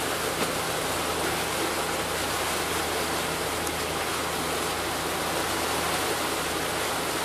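A steady rushing noise of a motor cruiser under way, over the low, even drone of its twin Mercruiser inboard engines.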